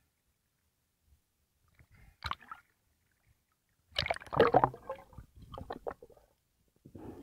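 Water splashing and gurgling over the camera as a freediver goes under the sea surface, loudest in a burst about four seconds in, with smaller gurgles after.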